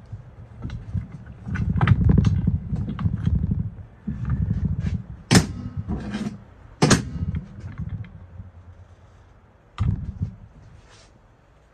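Metal working noise as a contactor assembly is unbolted and pulled off a large electric motor with gloved hands and a hand tool: low rubbing and handling rumbles, scattered small clicks, and sharp metal clanks about five and seven seconds in, with another about ten seconds in.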